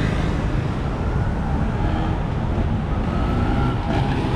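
City street traffic: motor vehicles running and passing in a steady rumble.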